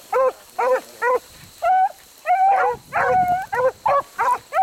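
Beagles baying while running a rabbit's track: short chopping barks about two a second, with longer drawn-out bawls in the middle.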